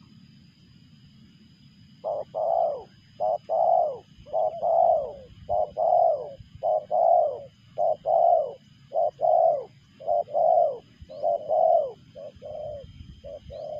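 Spotted dove cooing: a rapid run of short, hoarse coos in twos and threes, starting about two seconds in and going on without a break.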